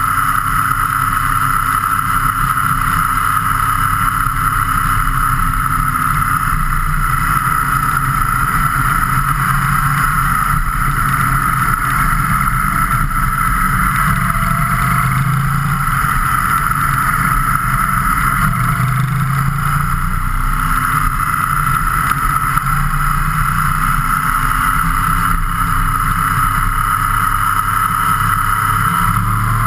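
Steady rush of wind and road noise on a camera mounted on a moving vehicle, with the vehicle's engine faintly rising and falling in pitch as the speed changes.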